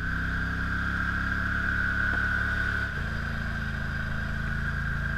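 ATV engine running as the quad wades through shallow lake water, with a steady high whine over it. The engine note shifts about three seconds in.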